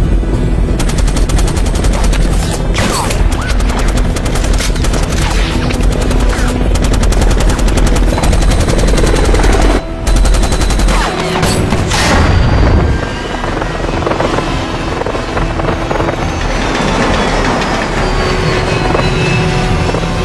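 Film battle sound mix: rapid, sustained machine-gun fire over helicopter rotor noise. About ten seconds in, it cuts out briefly, then comes a few seconds of loud heavy shots and impacts, after which music with held notes takes over.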